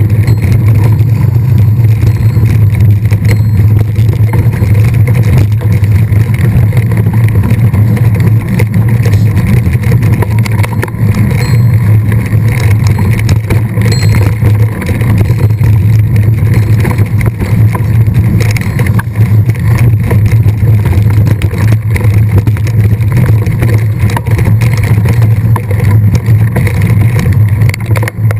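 Loud, steady low rumble of wind buffeting and riding noise on a mountain bike's onboard camera microphone, without a break.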